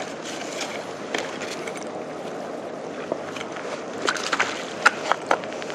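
Steady rush of wind and sea water at a concrete breakwater, with a handful of sharp clicks and knocks about four seconds in.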